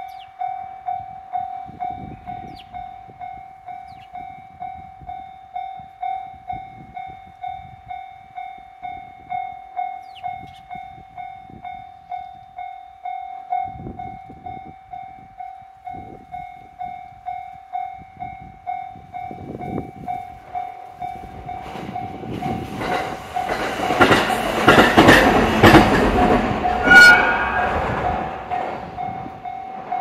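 Japanese railroad crossing's electronic warning bell ringing steadily at about two clangs a second, the signal that a train is coming. In the last third an electric train passes the crossing, its wheels rumbling and clattering on the rails, loudest just before the end with a brief high-pitched note; the bell stops as the train clears.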